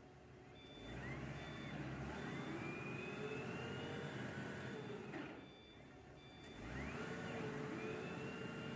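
Diesel forklift engine speeding up and holding its speed twice, with a pause between, while the forklift's reversing alarm beeps steadily.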